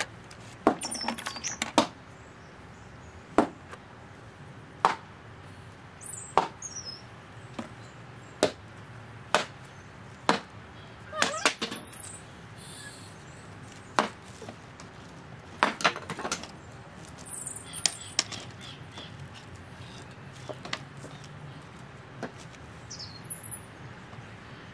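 Irregular sharp taps, roughly one every second or two, of a paintbrush dabbing against a large canvas on an easel. Garden birds chirp briefly every few seconds.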